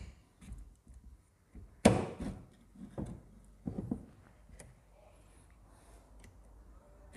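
Metal parts of a motorcycle engine's gear-change mechanism clicking and knocking against the crankcase as they are fitted by hand: one sharp knock about two seconds in, then a few lighter knocks and ticks.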